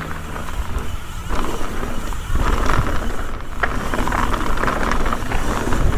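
Mountain bike rolling downhill on a dirt trail: a steady low wind rumble on the camera mic with the tyres crunching and rattling over dirt and loose rock, louder from about two and a half seconds in.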